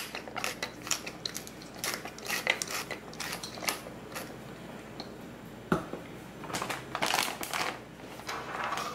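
Pepper mill grinding peppercorns: a dry, crackling crunch that comes in a few bouts as the mill is twisted by hand.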